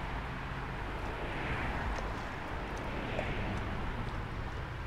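Steady drone of highway traffic, swelling slightly now and then, with a few faint clicks.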